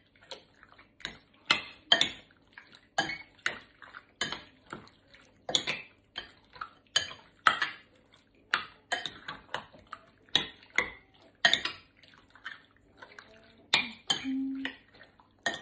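Hands mixing raw seasoned chicken strips in a glass mixing bowl: irregular wet slaps of the meat and knocks and clinks against the glass, about one or two a second.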